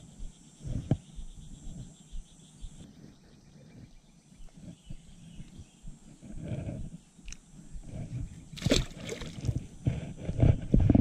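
Hands handling and unhooking a small bass over a kayak: scattered light knocks and rustles, with louder noisy bursts about nine seconds in and again near the end.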